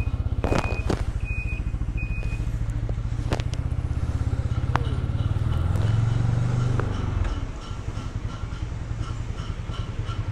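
Small motorcycle engine running under way, its rapid steady pulse swelling as the throttle opens around the middle, then easing off about seven and a half seconds in. A short electronic beep repeats about once a second in the first couple of seconds.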